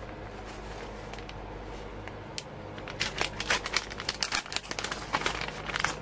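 Plastic shredded-cheese bag crinkling as a gloved hand opens it and reaches in: a quick, dense run of crinkles and clicks from about halfway through to the end.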